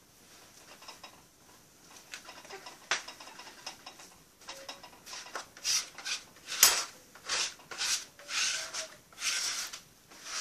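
A hand kneading soft, sticky bread dough (lisos dough, made with lard) on a wooden table: faint squishing at first, then from about halfway a run of louder wet slaps and squelches, about two a second, with one sharper smack among them.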